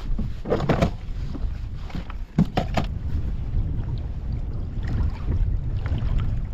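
Wind buffeting the microphone on a kayak, a steady low rumble, with two short clusters of knocks and rattles, about half a second in and again around two and a half seconds.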